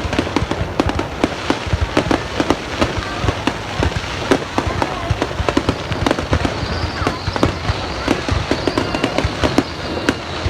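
Fireworks going off in a dense, irregular barrage: many sharp bangs and crackles, several each second, over a steady low rumble.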